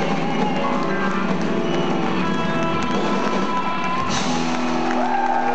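Live rock band with electric guitars playing loudly, the music settling into long held notes about four seconds in.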